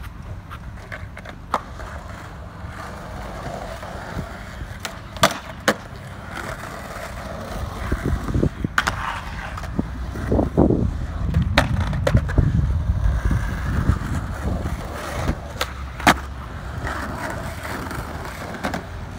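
Skateboard wheels rolling over concrete, the rumble growing louder partway through, with several sharp clacks of the board hitting the ground.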